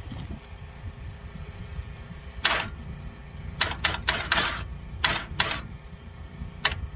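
Ratchet clicking in about eight short bursts, irregularly spaced, starting about two and a half seconds in, as the big-block Chevy engine is turned over by hand to bring a cylinder's intake valve to its closing point for a valve lash check.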